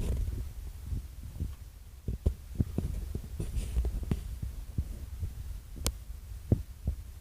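Microphone handling noise from a handheld camera: a low rumble with irregular soft knocks and clicks, one sharper click about six seconds in.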